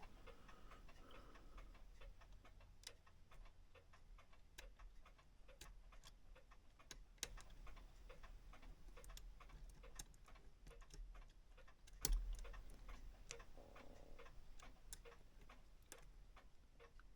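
Faint, steady ticking of a clock, with a single sharper knock about twelve seconds in.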